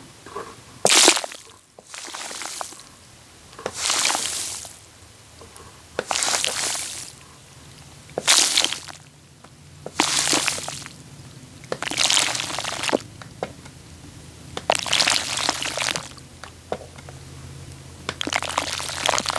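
Wet, squishing and sloshing sounds of a messy liquid trigger worked close to a microphone, coming in separate bursts about every two seconds.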